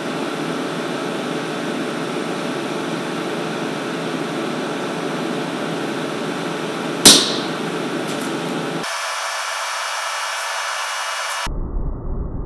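Stud welding gun firing once about seven seconds in: a single sharp crack over the steady hum of the welding power unit. From about nine seconds on the hum goes on but sounds abruptly thin, then muffled.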